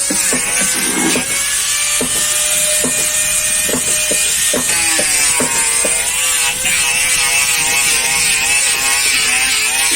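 Electric power tool running on wood, its motor pitch wavering under load over a steady high hiss, with scattered sharp knocks of wood being struck, mostly in the first half.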